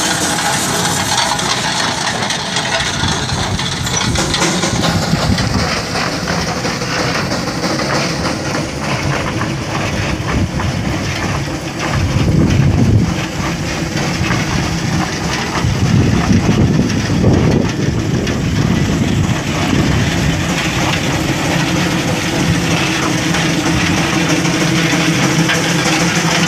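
1913 Geiser Peerless Model R steam traction engine running under steam as it drives slowly, its engine chugging steadily with the clatter of gearing and iron wheels on gravel. The engine is running on its first firing in about 17 years. It grows louder for a moment about halfway through and again a few seconds later.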